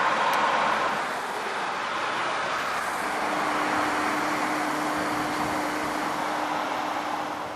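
Road traffic passing on a highway: a steady wash of car tyre and engine noise, a little louder in the first second, with a steady hum joining about three seconds in.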